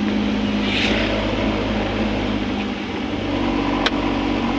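Car engine and road noise heard from inside the cabin while driving, running steadily with a constant hum. A single sharp click about four seconds in.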